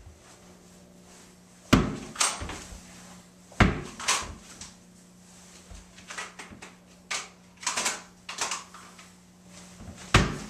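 A tennis ball bounced hard on a wooden floor three times, each bounce a sharp thud, with lighter knocks as it is caught. In between, jacket fabric rustles and clicks as the jacket is swept aside and a pistol is drawn from its holster.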